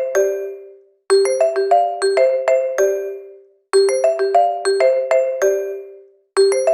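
Phone ringtone: a short melody of about seven quick struck, ringing notes, repeating on a loop about every two and a half seconds, each phrase dying away before the next begins.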